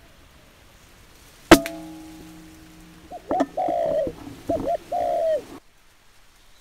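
A single sharp shot from a PCP air rifle, with a brief ringing after it. About two seconds later a dove coos twice, each coo a couple of short notes followed by a longer note that falls at the end. The sound cuts off abruptly near the end.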